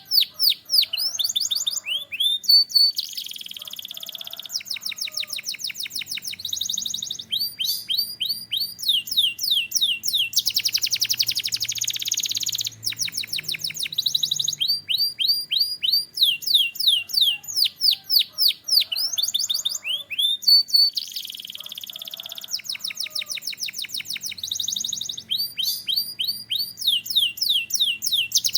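Canary singing: runs of quick, falling whistled notes alternate with dense, buzzing rolled trills held for two to three seconds, the phrases repeating over and over.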